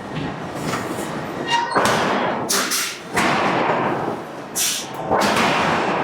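Hydraulic forging hammer striking a steel billet: a series of heavy blows, the loudest about two, three and five seconds in, with a noisy rushing sound between them.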